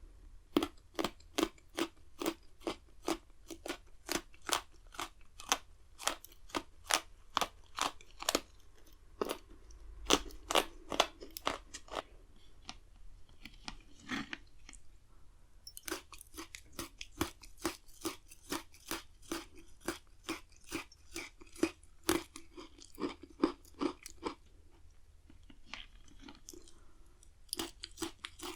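Pocky chocolate-coated biscuit sticks being bitten and chewed close to the microphone: a run of sharp, dry crunches, about two or three a second, pausing briefly twice.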